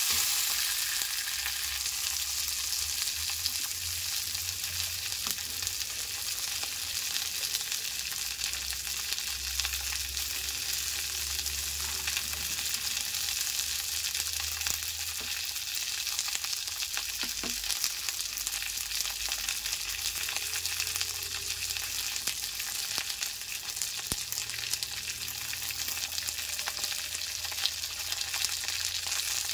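Corn kernels frying in hot oil in a kadhai with curry leaves: a steady sizzling hiss with faint crackles.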